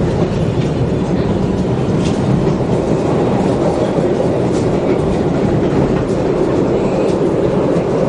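Chicago Green Line rapid-transit train running on its tracks, heard from inside the car: a steady rumble with occasional faint wheel clicks over the rail joints.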